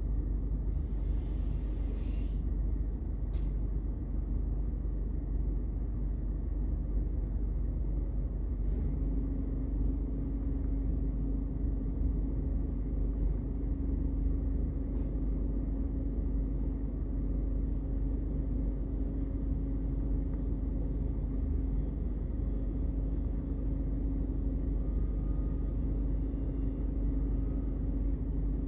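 Rear-loader garbage truck's engine running with a steady low rumble. A few light clanks come in the first few seconds. About nine seconds in, a steady hum sets in and holds as the truck's hydraulics are worked from the rear controls.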